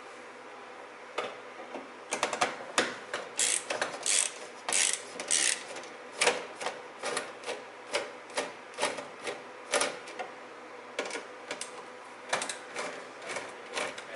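A long run of sharp clicks and taps at an uneven pace of roughly two a second, with short rustling stretches about three to five seconds in.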